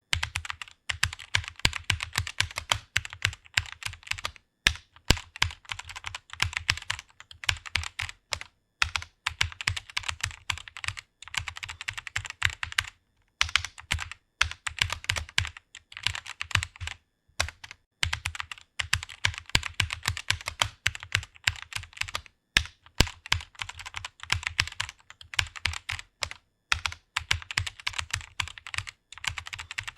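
Fast typing on a computer keyboard: a dense stream of key clicks, broken by brief pauses every few seconds.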